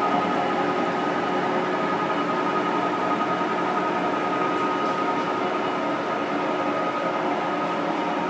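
American Pacemaker engine lathe with a 15 hp motor running under power: a steady mechanical whir of the geared drive with a steady high whine on top.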